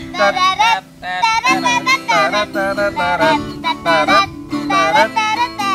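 A high-pitched voice singing to strummed acoustic guitar chords, with a short break about a second in.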